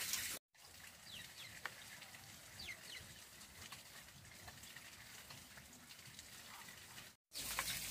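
Quiet background with a few faint, short, high chirps that fall in pitch, from birds.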